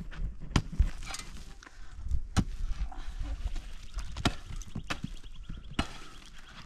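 Pickaxe striking hard, dry, stony soil: about half a dozen irregularly spaced blows, with loosened dirt and pebbles scraping between them.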